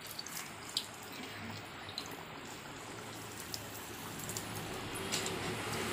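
Rice vadas deep-frying in hot oil in a steel kadai: a steady sizzle with scattered crackling pops, growing louder toward the end as the dough balls are dropped in one by one.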